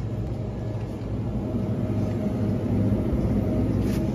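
Steady low mechanical hum of a store's refrigerated freezer case, with a faint constant tone over it, getting a little louder about halfway through.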